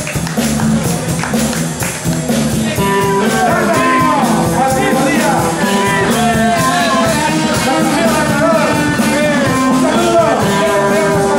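Live rock band playing loudly: electric guitar, bass and drums, with a man singing into a microphone from about three seconds in.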